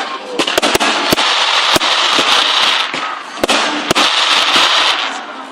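Fireworks going off: a rapid string of sharp bangs, mostly in the first two seconds with two more near four seconds, over a dense, loud crackling hiss that dips briefly midway and fades near the end.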